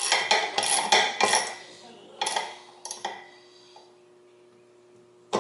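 Metal parts and tools clinking and clanking as they are handled during drill press assembly: a quick run of sharp clinks over the first three seconds, then quiet until a sharp clank at the very end.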